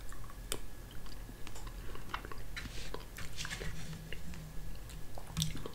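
Quiet eating sounds of a spoonful of fruit gelatin snack, with scattered small wet clicks of the mouth, and a metal spoon scooping in the plastic gel cup.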